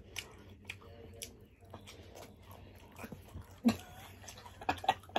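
Eating sounds close to the microphone: chewing and scattered small clicks of mouth and utensils, with a sharp louder sound a little before four seconds in and a brief voiced sound near the end.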